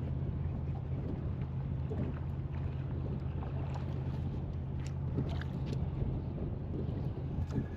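Wind buffeting the microphone, a steady low rumble, with a few faint light clicks about halfway through.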